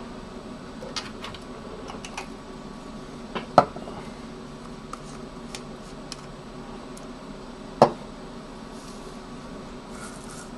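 Small hard objects handled on a desk: sparse light clicks and taps, with two sharper knocks, one about a third of the way in and one about three-quarters of the way in, over a steady low hum.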